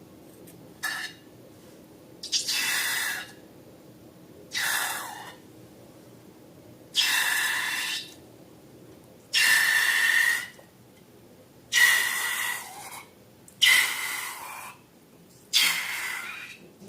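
Balloon being squeezed in repeated pushes, its contents sputtering and hissing out through the neck in about eight bursts of up to a second each, roughly every two seconds, some with a thin squeal.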